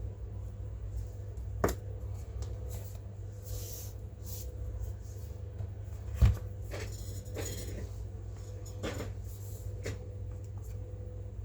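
Scattered clicks and knocks from a laptop's plastic case and parts being handled during a RAM upgrade, with a sharper knock about six seconds in, over a steady low hum.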